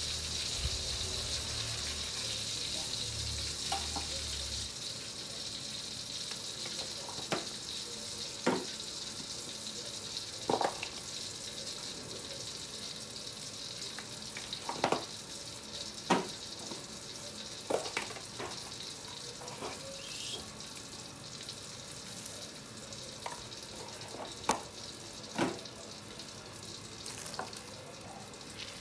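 Hot oil sizzling on freshly fried chilies, shallots and tomatoes just tipped into a stone mortar; the hiss is strongest at first and slowly fades, with a dozen or so sharp clicks scattered through it.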